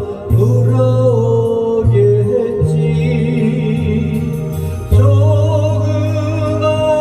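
A vocal song: a singer's voice, gliding between notes with vibrato, over an instrumental backing track with long held bass notes.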